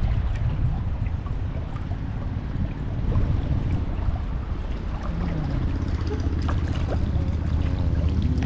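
Steady rushing of fast-flowing river water, with a heavy low rumble.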